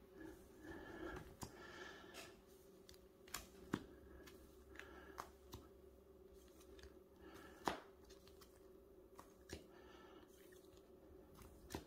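Faint handling of bagged comic books: scattered soft clicks and plastic rustles over a low room hum, with one sharper click a little past the middle.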